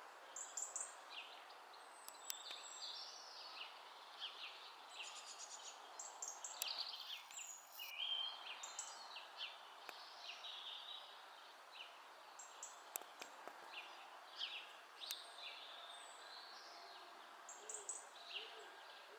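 Several small birds chirping and calling over and over, short high notes overlapping one another, over a steady faint background hiss, with a few sharp clicks scattered through.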